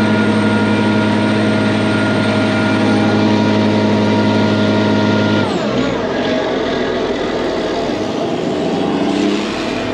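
Heavy farm machinery running, a forage harvester and silage truck: a loud, steady hum of several tones drops in pitch abruptly about five and a half seconds in. After that the running is rougher, with an engine note rising near the end.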